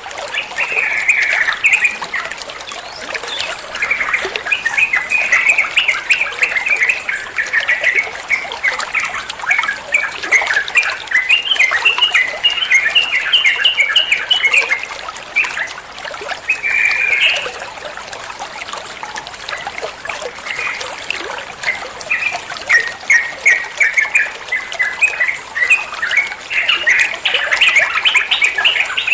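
Sooty-headed bulbul (trucuan) singing rapid, rolling chattering phrases in repeated bouts, over a steady trickle of running water.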